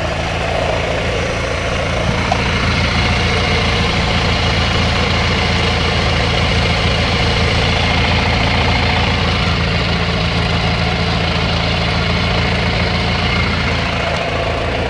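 Small single-cylinder engine of a Murray riding lawn mower running steadily.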